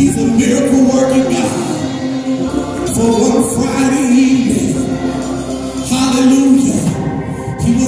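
Gospel praise music: a group of voices singing, holding long notes, with a drum kit and cymbals played along.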